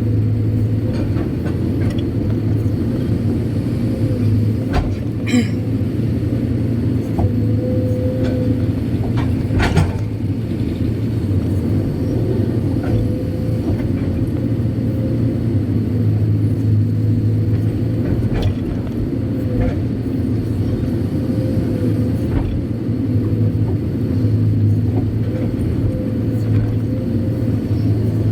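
Kobelco SK200-8 Super X excavator's diesel engine running steadily under load while digging and loading laterite, with a faint steady whine above the low hum. A few short knocks stand out, about five, ten and eighteen seconds in.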